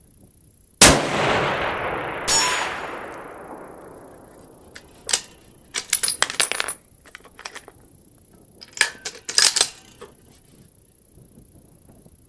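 A bolt-action precision rifle fires one shot about a second in, with a long echoing tail rolling away over the range. About a second and a half later comes a second sharp crack with a brief ring. After that, a few metallic clicks and clacks at two points are the bolt being worked.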